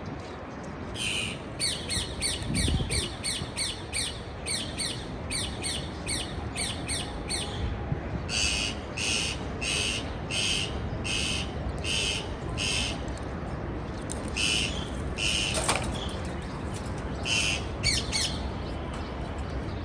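Parakeet calling in series of short, harsh squawks: a fast run of about three or four calls a second, then slower, evenly spaced calls, then a few scattered groups.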